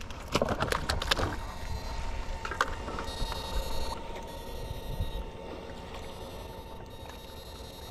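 A 22-FET electrofishing inverter whining steadily at one high pitch, over a low rumble from the boat. Water splashes and a few sharp knocks come in the first second or so, and a fine high buzz comes in twice.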